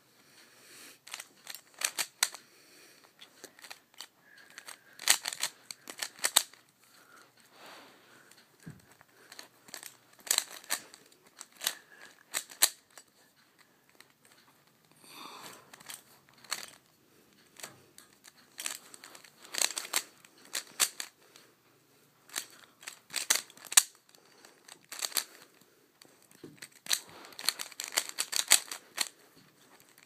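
Plastic layers of a Dayan Guhong V2 3x3 speedcube clicking and clacking as they are turned by hand, in quick flurries of turns with short pauses between them.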